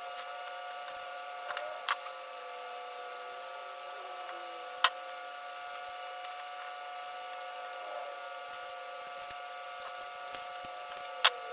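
Hands working on a car's wire harness: a few sharp clicks and snaps, about two seconds in, near the middle and near the end, over a steady electrical hum of several tones.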